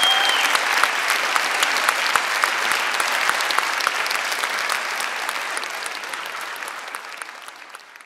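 Audience applauding: dense clapping that fades away over the last couple of seconds.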